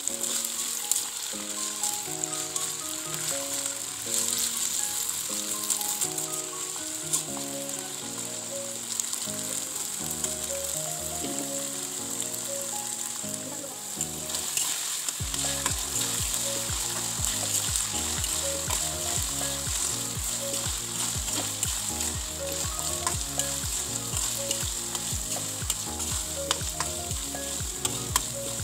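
Oil sizzling steadily in a wok as sliced jengkol fries, with occasional scrapes and clicks of a metal spatula stirring the slices. Background music plays throughout, with a bass beat coming in about halfway through.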